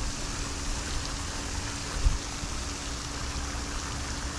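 Steady splashing hiss of a pond aerator fountain's spray falling back onto the water, over a low rumble and a faint steady hum, with a brief thump about two seconds in.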